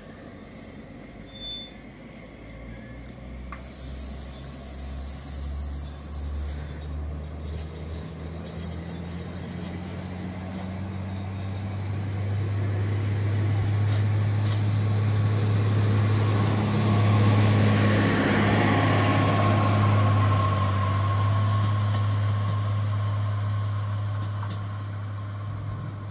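SNCF AGC X76500-class diesel multiple unit pulling away from a station, its diesel engines revving up with a low note that climbs in pitch over the first ten seconds, then running steadily at high revs and growing louder. There is a short burst of compressed-air hissing about four seconds in.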